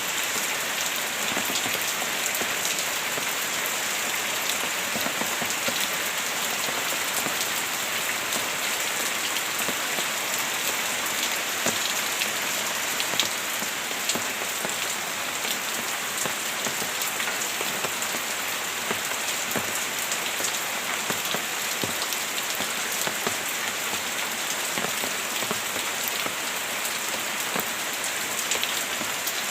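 Steady heavy rain falling on a hard surface, a dense hiss threaded with the ticks of single drops striking.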